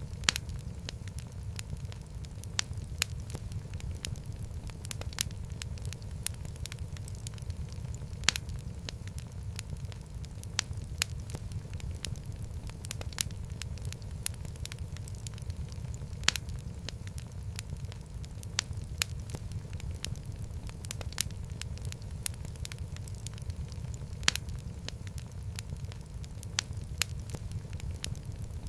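Wood fire burning in a fireplace: a steady low rumble of flame with irregular sharp crackles and pops from the burning logs.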